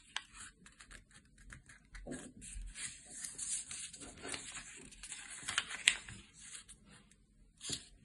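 Sheet of origami paper rustling and rubbing under the fingers as its edges are folded in to the centre crease and the folds are pressed flat, with a few sharper crinkles, the sharpest about six seconds in.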